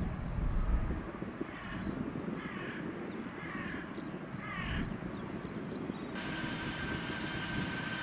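A crow cawing four times, about a second apart, over a low outdoor rumble. About six seconds in, a steady high jet-engine whine begins.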